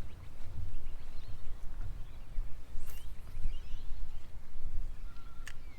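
Wind buffeting the microphone outdoors by the water, a steady uneven low rumble, with faint bird chirps and two sharp clicks, about three seconds in and near the end.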